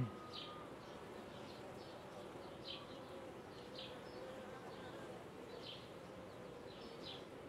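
Honeybee colony buzzing around an opened hive as a frame of bees is held out of the box: a faint, steady hum, with short high chirps now and then.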